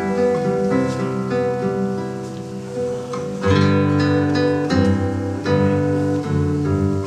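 Acoustic guitar played solo: picked single notes and arpeggios, with fuller, louder chords struck from about three and a half seconds in.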